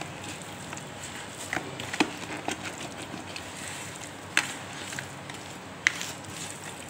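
A spoon stirring oily avakaya, raw mango pieces coated in chili and mustard powder, in a plastic tub: wet scraping and squishing with a few sharp clicks of the spoon, the loudest about two seconds in, midway and near six seconds.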